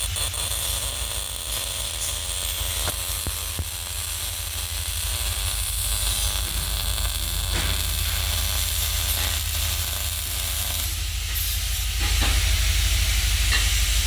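MIG welding arc: a steady crackling sizzle over a low buzz, getting louder near the end.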